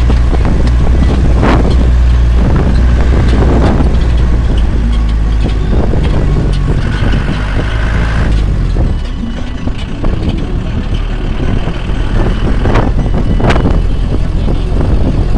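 A motor vehicle's engine running with road noise, steady and loud, easing off briefly about nine seconds in before picking up again.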